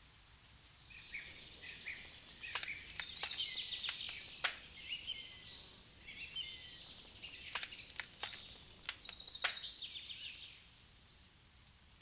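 Songbirds chirping and twittering in two busy bouts, with sharp clicking notes among the calls, over a faint steady background hush. The first bout starts about a second in, the second about halfway through, and the birds fall quiet near the end.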